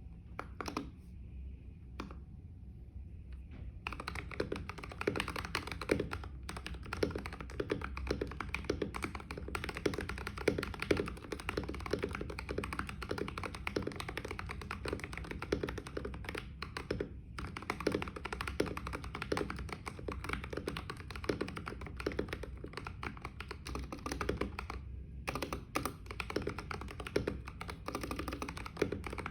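Typing on a NovelKeys NK65 mechanical keyboard with lubed Everglide Oreo tactile switches and XDA PBT keycaps: a few single key presses, then steady fast typing from about four seconds in, with a couple of brief pauses.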